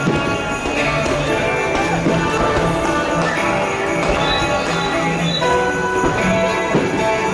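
Christmas show music with jingle bells ringing along.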